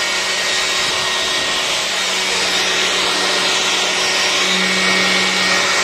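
Handheld electric air blower running steadily at full speed: a loud, even rush of air over a constant motor hum.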